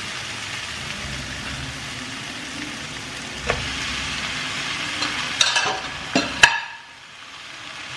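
Onion-tomato masala with chilli and cumin powder sizzling in oil in a pan, with a spatula clicking and scraping against the pan a few times. The sizzle drops away suddenly near the end, then slowly comes back.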